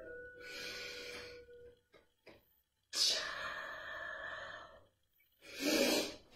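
A Hung Gar kung fu practitioner exhales forcefully through the mouth in hissing breaths as he strikes: a faint one at the start, a long, louder one about three seconds in, and a shorter one near the end.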